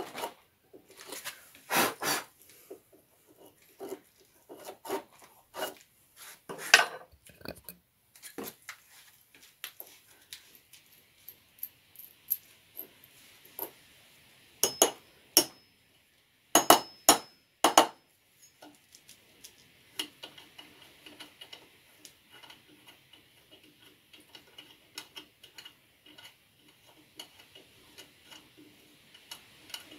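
A small metal tool scraping and clicking inside a drilled hole in a wooden workbench leg, clearing out wood shavings. About halfway through come a handful of sharp hammer taps in two quick groups, driving a nut into the hole.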